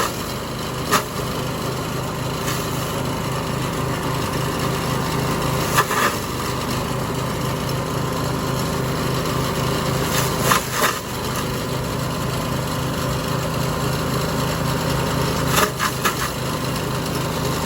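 Engine-driven forage chopper running steadily under load. Short, louder crunches come about every five seconds as grass and corn stalks are fed in and cut up.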